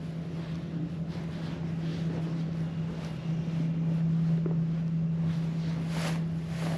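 Steady low room hum with faint, regular footfalls of someone walking slowly on a hard floor, one a little louder about six seconds in.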